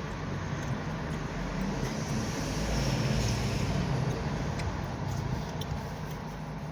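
Road traffic noise: a passing vehicle swells and fades about three seconds in, over a steady low hum.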